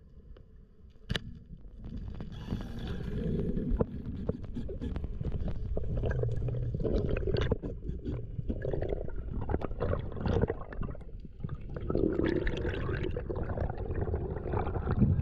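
Underwater water noise on a camera as a freediver swims up from depth: a low gurgling rush that swells and ebbs, with scattered small knocks and one sharp click about a second in.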